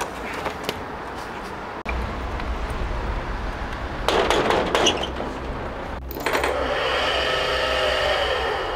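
A shop's metal roller shutter: a short rattle about four seconds in, then a longer steady rattle of the metal slats as the shutter is rolled up, lasting the last few seconds.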